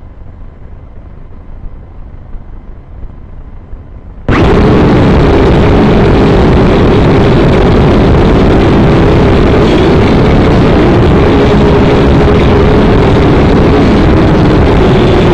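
A small camera drone's propeller motors start suddenly about four seconds in, with the drone resting on the road, then run loud and steady with a humming tone as it lifts off, heard through the drone's own camera microphone. Before the start there is only a low rumble with a few faint knocks.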